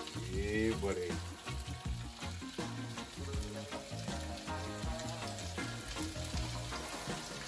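Oil and food sizzling and crackling steadily in a hot pan on high heat, with low bass notes of background music underneath.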